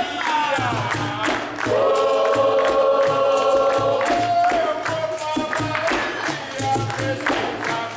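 Group of voices singing together, holding one long note about two seconds in, over a steady low hand-drum beat.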